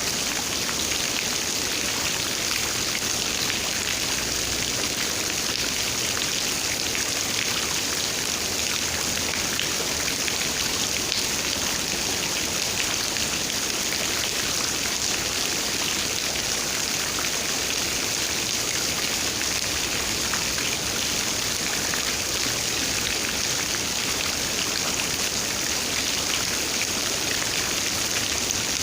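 Steady rain falling, a dense patter of raindrops over an even hiss.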